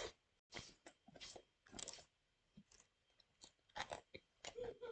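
Faint chewing of a Cheez-It sandwich, crunchy cheese crackers between slices of soft bread: a string of short, irregular crunches, about two or three a second.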